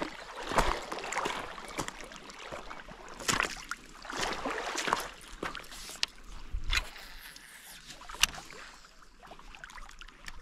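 Shallow seawater sloshing and splashing in irregular bursts, with a few sharp clicks.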